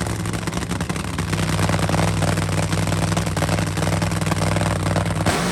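Supercharged nitromethane V8 of a nitro funny car running hard, a loud steady drone under dense crackling. It cuts off abruptly about five seconds in.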